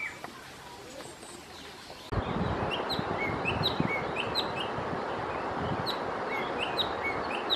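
Small birds chirping in short, sharp, repeated notes, a few a second, over a steady rushing background noise. Both start abruptly about two seconds in, after a quieter stretch.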